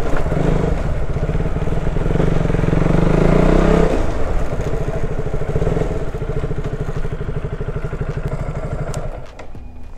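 KTM Duke motorcycle engine running at low speed. It eases off after about four seconds to a slow, even pulsing as the bike rolls to a stop, then cuts out near the end.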